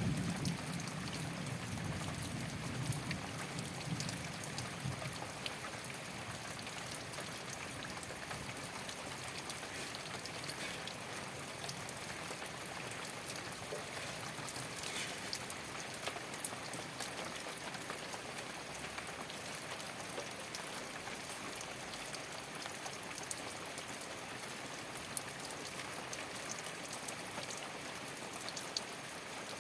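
Rain falling steadily on a thatched straw roof: an even hiss of rain with scattered individual drop ticks. A low rumble underneath fades away over the first five seconds or so.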